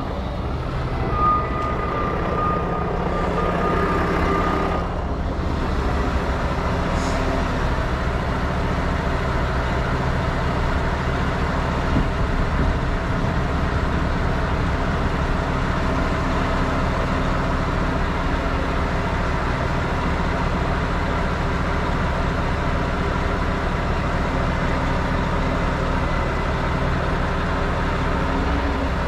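Heavy wrecker's diesel engine running steadily while its boom and winch line are worked, with a thin high whine over it for the first few seconds.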